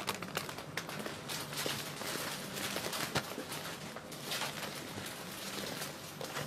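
Clear cellophane florist wrap crinkling and rustling in irregular bursts as hands gather it around a bouquet and tie it with ribbon.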